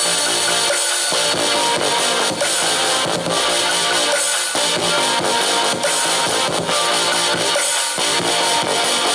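Music with a drum kit and guitar playing through a pair of small C3 Tech SP-301BK USB desktop speakers, at a steady level.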